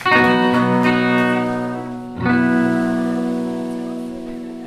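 Guitar strumming two chords through an amp, each struck once and left to ring and fade; the second comes a little after two seconds in.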